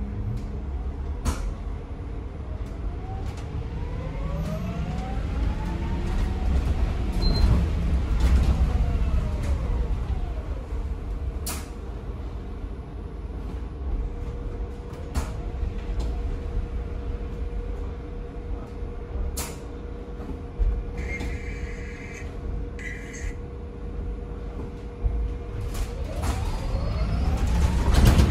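Ride inside an electric single-deck bus (ADL Enviro 200 EV on a BYD chassis with in-wheel motors): steady low road rumble, with the electric drive's whine rising and then falling in pitch as the bus speeds up and slows, twice. A few sharp knocks and rattles from the body break through now and then.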